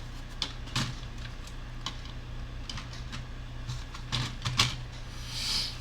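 Scattered light clicks and taps of plastic laptop parts being handled and fitted, over a steady low hum, with a brief rustle near the end.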